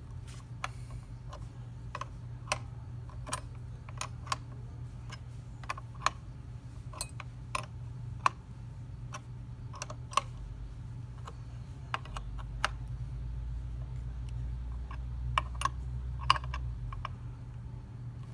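Irregular metal clicks and clinks of a wrench on a motorcycle mirror-mount nut being tightened, the wrench tapping as it is fitted and shifted between turns, over a steady low hum.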